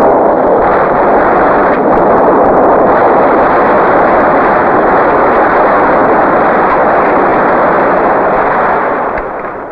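Loud, steady roar of a battle sound effect in an old war film, with explosions and smoke in the picture, easing off a little near the end.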